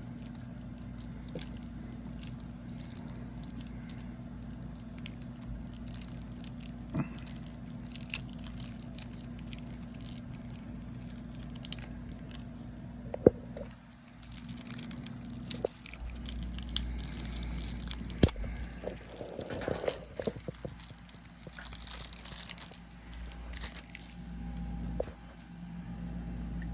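Plastic wrapping on a deck of playing cards being picked at and torn open, with scattered crinkles and small clicks over a steady low hum.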